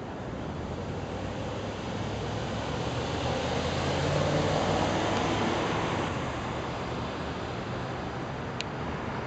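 Street traffic with a motor vehicle passing: its engine and tyre noise swell from about three seconds in and fade away by about six seconds. A brief click near the end.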